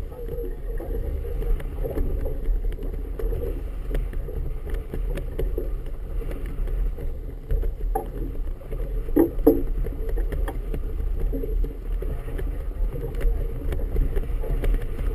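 Choppy water lapping and splashing against a boat's hull, with steady wind rumble on the microphone. A brief louder thud stands out about nine seconds in.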